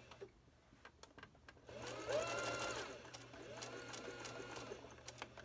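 Electric sewing machine top-stitching fabric in two short runs: the motor's whine climbs as it speeds up and drops as it slows. Light clicks of handling come in the first second or so.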